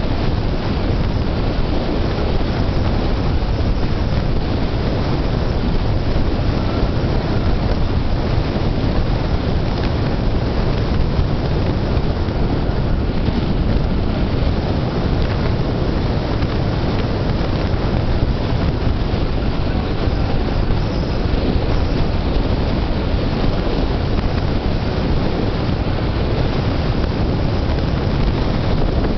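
Steady wind rushing over a camera microphone held out the window of a car moving at about 45 mph, mixed with the car's road and engine noise.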